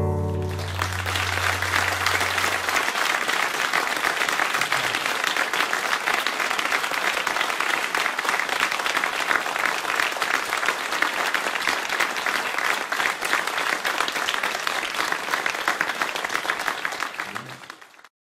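Audience applauding steadily at the end of a song, with the last chord of a nylon-string classical guitar still ringing under it for the first couple of seconds. The applause fades out near the end.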